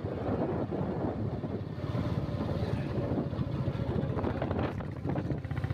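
Motorcycle engine running as it rides along, with wind rumbling on the microphone. Near the end the engine's beat turns into a fast, even pulse.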